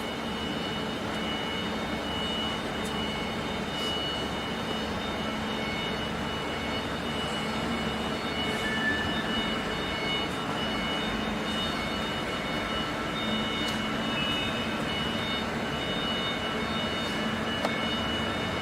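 Steady machine hum from a laser welding machine's water chiller and control cabinet running during warm-up, with several steady high-pitched whines over it and an occasional faint click.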